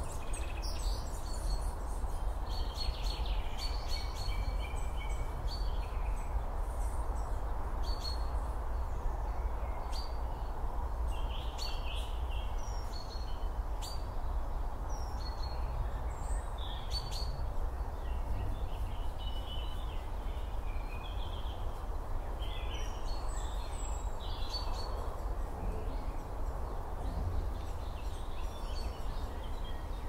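Outdoor ambience: many birds calling and chirping on and off throughout, over a steady low rumble and hiss.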